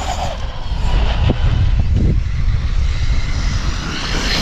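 Large RC car's electric motor revving in short rising whines, over a heavy rumble of wind on the microphone.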